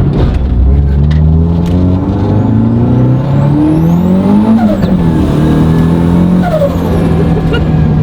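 Turbocharged 1.6-litre Mazda Miata four-cylinder engine under acceleration: its pitch climbs steadily for about four and a half seconds, drops quickly, then holds steady. A faint high turbo whistle rises and falls with it. The driver says the clutch is slipping badly.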